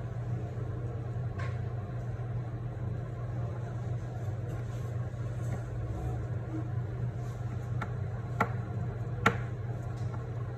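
A steady low hum with a handful of small sharp clicks, the loudest about nine seconds in.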